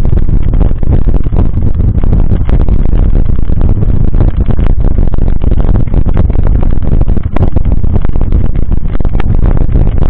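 Wind buffeting the microphone of a camera mounted on a moving mountain bike, a loud, steady low rumble, with constant rattles and knocks from the bike rolling over rough, cracked pavement.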